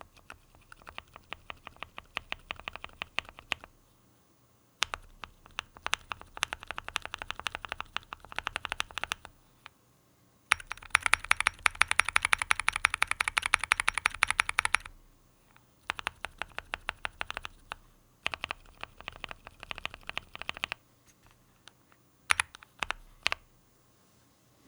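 Typing on a QK65 mechanical keyboard fitted with heavy tactile Durock Mocha switches: bursts of quick keystrokes separated by short pauses, with the fastest and loudest run in the middle.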